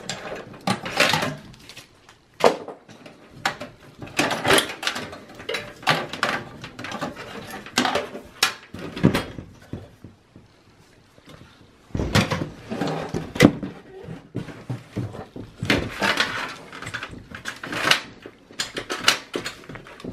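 Cables being unplugged and pulled free inside a steel desktop PC chassis: irregular clicks, rattles and rustling of plastic connectors and wiring against sheet metal, with a brief lull about halfway through.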